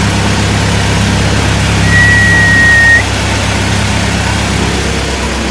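Combine harvester engine running steadily. About two seconds in, a steady high whistle-like tone sounds over it for about a second.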